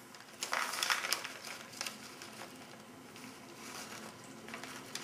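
MRE ration pouch crinkling as dried cranberries are shaken out of it into a tray compartment, loudest about half a second to a second and a half in, then a few softer crinkles and small ticks.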